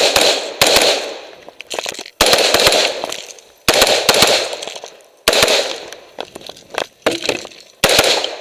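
Rifle shots fired singly in a timed course of fire, roughly one every half second to a second and a half. Each loud crack trails off in a long echo, with smaller sharp cracks in between.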